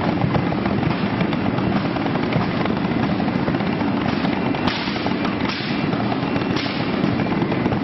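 Propane flame-effect jets firing bursts of fire: a rushing whoosh, with a few louder bursts in the middle, over a steady background din.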